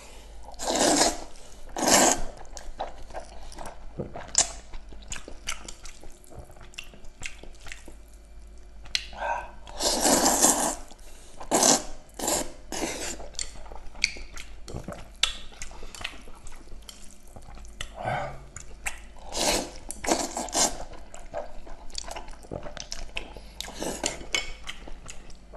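Noodles being slurped in several loud, wet bursts, with mouth chewing and smacking clicks in between.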